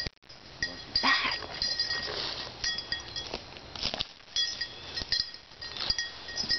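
Footsteps crunching through dry leaf litter and brush, with light metallic clinks that ring briefly now and then.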